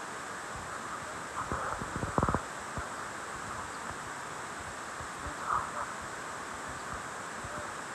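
Steady background hiss, with a quick run of soft knocks about two seconds in and a fainter one about five and a half seconds in.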